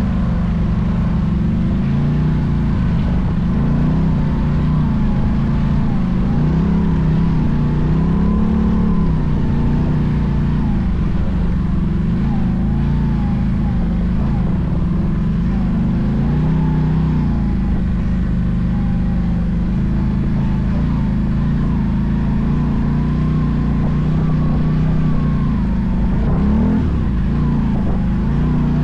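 Can-Am off-road vehicle engine running under way, its revs rising and falling continually as it is driven.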